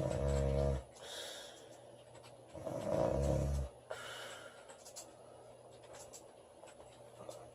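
A woman snoring: two loud, low snores about three seconds apart, each followed by a softer, breathy out-breath.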